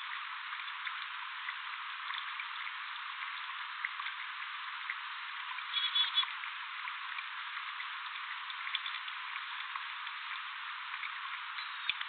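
Steady crackling hiss held in a narrow middle band, with scattered faint ticks, and a brief louder high-pitched sound about halfway through.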